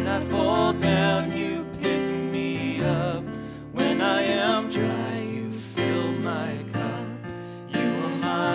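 A woman sings a slow worship song into a microphone, holding wavering notes, over chords played on an electric keyboard.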